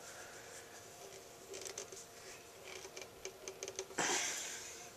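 Hands working at a motorcycle carburetor and its hardened rubber fuel line: a run of small clicks and taps, then a louder rustling noise about four seconds in that fades over about a second.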